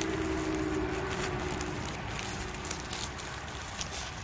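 Steady rumble of nearby highway traffic, with one vehicle's hum fading away over the first two seconds. Scattered clicks and rustles of a shipping package being handled one-handed.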